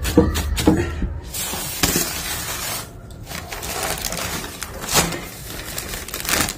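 Thin black polythene sheet crinkling and rustling as it is handled and spread out, with a quick run of sharp crackles in the first second.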